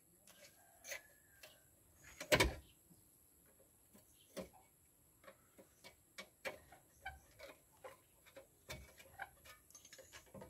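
Irregular light metallic clicks and ticks of a wrench working a bolt at the rear drum-brake backing plate of a Toyota Land Cruiser BJ60, during a brake wheel-cylinder repair, with one louder knock about two seconds in.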